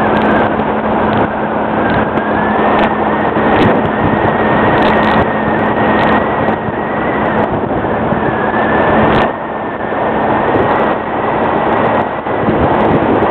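Speed boat's engine running steadily at speed: a steady high whine over a loud rush of wind and water.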